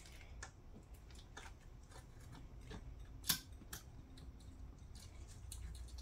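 Small metal clicks and taps of a cap bolt, lock washer and flat washer being fed through a cable lug into the B- terminal of a battery management board by hand, with one sharper click about three seconds in.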